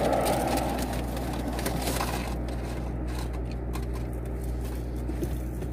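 Steady low hum of a car engine idling, heard from inside the cabin, with a louder rushing noise fading away in the first second and faint clicks and rustles of takeout packaging.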